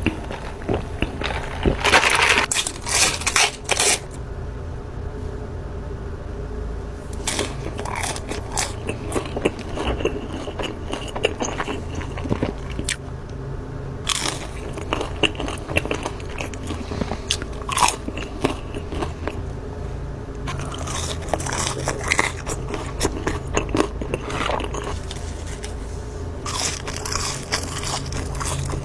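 Close-miked eating: a person biting into crunchy food and chewing, with irregular crisp crunches throughout, the loudest run of crunches about two to four seconds in.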